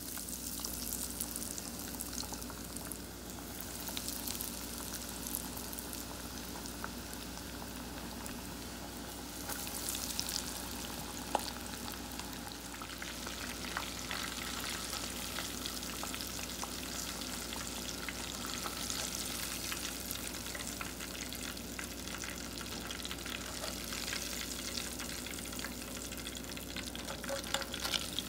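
Breaded perch fillets deep-frying in lard at about 350°F in a saucepan: a dense, steady crackling sizzle that picks up as a fillet is lowered into the fat.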